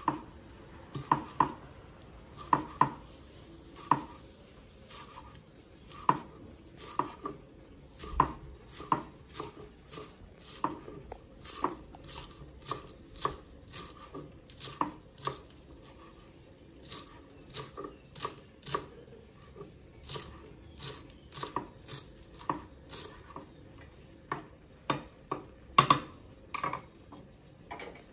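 Kitchen utensils knocking and clattering: a long run of irregular sharp knocks, about one or two a second, some with a brief metallic ring.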